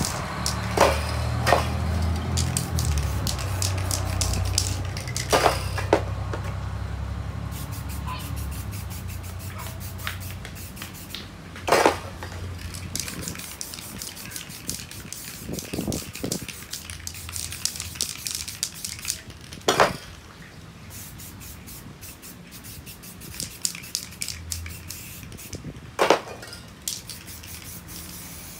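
Aerosol spray-paint cans hissing in short bursts as paint is sprayed onto a board. About seven sharp knocks are spread through it, with a low rumble underneath during the first few seconds.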